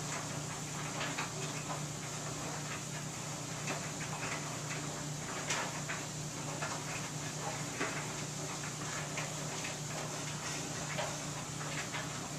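Front-loading clothes dryer running: a steady hum as the drum tumbles the load, with scattered light clicks.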